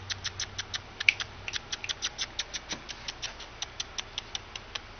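Rapid light clicking from a five-week-old Astrex baby rabbit, about six clicks a second, stopping near the end.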